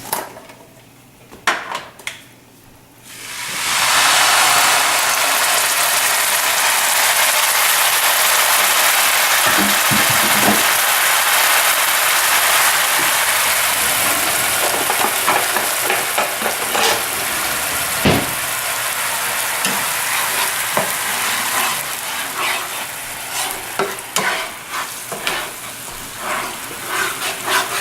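Blended onion, garlic and ginger paste frying in a hot pan. It breaks into a loud, steady sizzle about three and a half seconds in, with the scrape and tap of a spatula stirring it, and the sizzle eases a little near the end.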